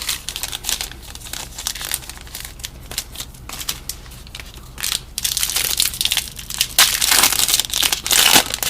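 Crinkling and rustling of a plastic trading-card pack wrapper being handled, with small clicks of cards. The crinkling grows denser and louder about five seconds in.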